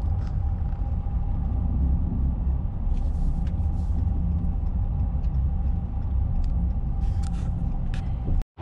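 Cab noise of a Ram pickup driving at highway speed: a steady low rumble of engine and tyres on the road, with a faint constant hum above it. It cuts off abruptly just before the end.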